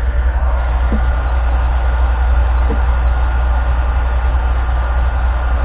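Electric heat gun running steadily, its fan and motor giving a continuous blowing hum while it heats the plastic canoe seat surface.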